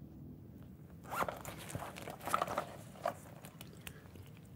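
Faint handling sounds: three short rasping scrapes, roughly a second apart, with small clicks and rustles in between.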